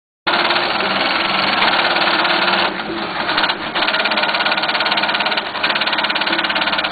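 Industrial post-bed sewing machine stitching a shoe upper, running fast with a rapid, even needle rhythm. It starts suddenly and slows briefly a couple of times as the work is turned.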